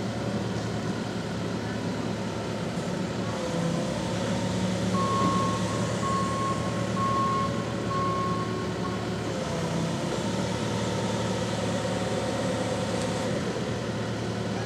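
Telehandler engine running steadily under load, its pitch rising twice as it is revved. In the middle a reversing alarm beeps five times, just under a second apart.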